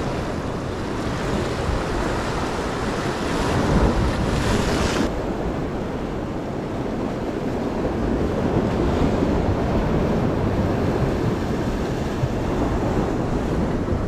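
Sea waves washing and foaming against the boulders of a rock jetty, with wind rumbling on the microphone. The high hiss drops off sharply about five seconds in.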